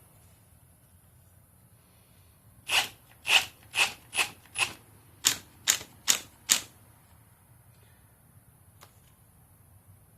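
Cordless brushless hammer drill driving a timber-lock structural screw in about nine short, quick bursts a few seconds in, then stopping.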